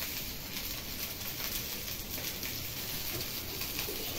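Pot of vegetables cooking over a lit LPG gas burner: a steady hiss with faint crackles.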